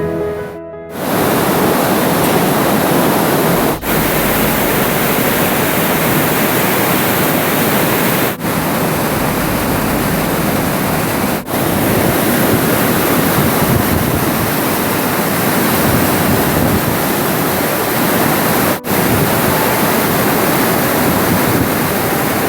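Waterfall's water rushing, a dense steady noise, broken by four brief dips where shots are cut together.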